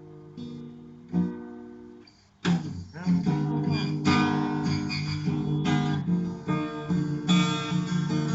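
Acoustic guitar instrumental passage: a few quiet picked notes, then louder strummed chords from about two and a half seconds in.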